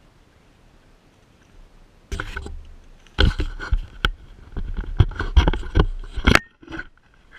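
Close handling noise on a GoPro mounted low on a parked motorcycle: irregular knocks, rubs and scrapes that start about two seconds in and stop shortly before the end, as a hand reaches in and grabs the camera. The engine is not running.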